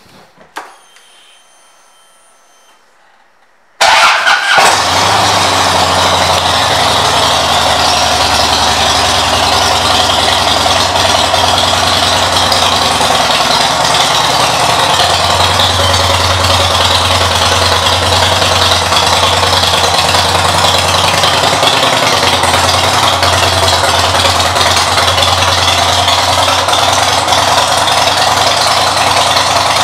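Harley-Davidson Dyna Wide Glide's air-cooled Twin Cam 88 V-twin starts abruptly about four seconds in. It then idles steadily through aftermarket exhaust pipes.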